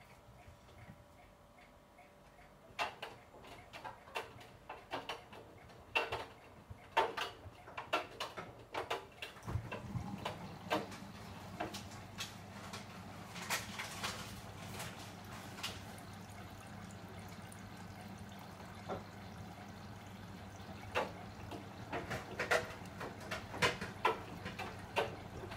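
Bosch Serie 8 front-loading washing machine running a wash: irregular clicks and knocks of laundry tumbling in the drum, with water. About ten seconds in, a steady low hum from the machine starts and carries on under the clicks.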